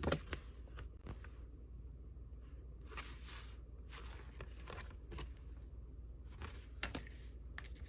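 Soft rustling and shuffling of old paper cards and ephemera being handled, in short swishes with a few light taps, over a low steady room hum.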